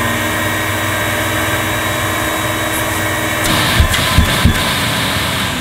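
Electrolux 504 upright vacuum cleaner's motor running steadily, drawing air through the hose and nozzle for a suction test. About three and a half seconds in, the airflow hiss opens up and grows louder, with three quick knocks.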